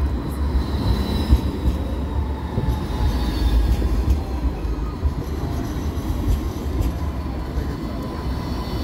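Light rail tram running past close by: a steady low rumble with faint thin high tones from the wheels and drive, rising and falling a little in pitch.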